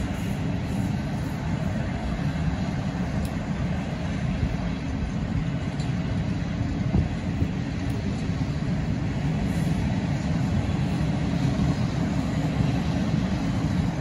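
Empty flat wagons of a freight train rolling past on the rails: a steady rumble of wheels on track, with a few faint clicks.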